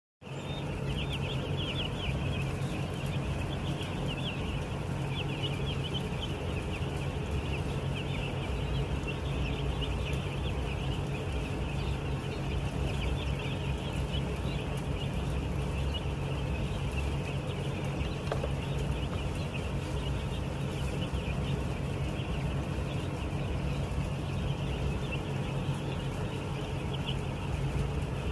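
A large flock of week-old broiler chicks peeping constantly, a dense chorus of many overlapping high chirps, over a steady low hum.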